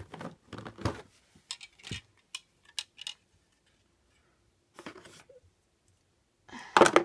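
Plastic items being handled and moved: a run of short clicks and knocks from hard plastic novelty sunglasses and a bubble-packed toy figure, with a louder burst of handling noise near the end.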